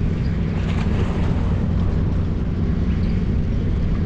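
A steady low engine drone that holds an even pitch and level throughout.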